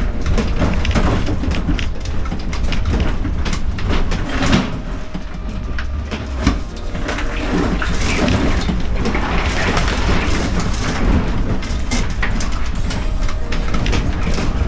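A vehicle driving over rough off-road ground: a steady low rumble under constant irregular rattling, knocking and clattering from the body and bumps.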